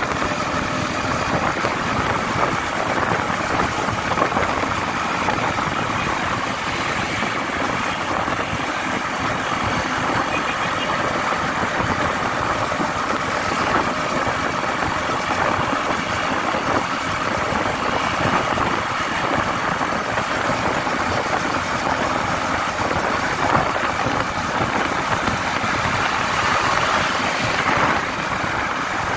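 Steady engine and road noise of a moving vehicle, even throughout with no sudden events.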